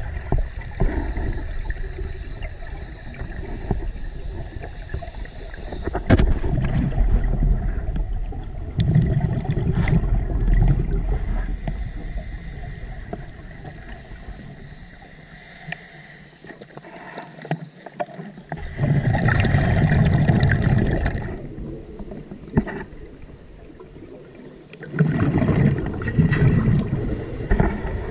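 Scuba diver breathing through a regulator underwater: exhaled bubbles rumble loudly in bursts of a few seconds, several times, with quieter stretches between breaths.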